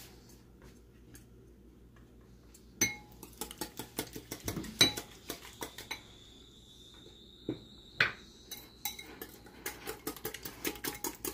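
Metal wire whisk beating a thick mayonnaise-based sauce in a bowl, the wires clicking and clinking against the bowl's sides. Quiet for the first few seconds, then the strokes start and come faster toward the end.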